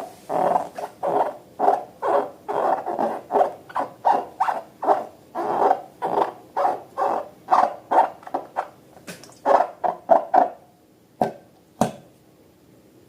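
Slime being squeezed and kneaded by hand, making wet squelching squishes about two or three times a second that stop near the end, followed by two sharp clicks.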